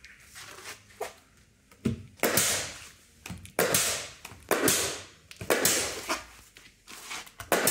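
Pneumatic plastic nail gun firing into the wooden hull planking: a string of sharp shots about a second apart, starting about two seconds in, each trailing off briefly.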